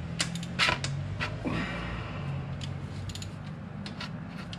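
Scattered metal clicks and ticks of a 17 mm wrench being fitted onto the oil pan drain plug, just before the plug is broken loose. The sharpest clicks come in the first second or so, then lighter ticks, over a steady low hum.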